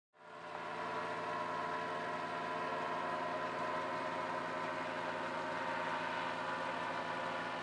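Powered parachute trike's engine idling steadily on the ground, the wing still laid out behind it before launch.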